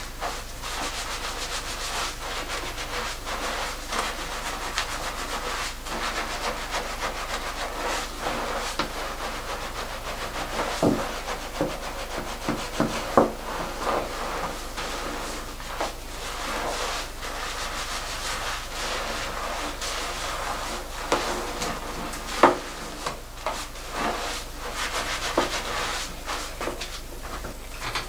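Gloved hands scrubbing shampoo lather through thick, coily 4B hair: a continuous wet rubbing and squishing of foam, with scattered short crackles.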